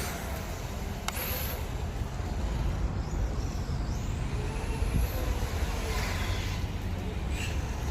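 XRAY FK05 radio-controlled car's Novak 5.5T brushless motor whining as the car runs, the high-pitched whine rising and falling a couple of times over a steady low rumble.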